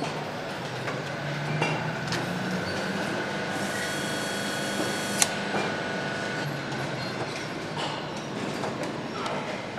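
Assembly-line noise in a motorcycle engine factory: a steady mechanical hum with scattered metallic clinks and a sharp click about five seconds in.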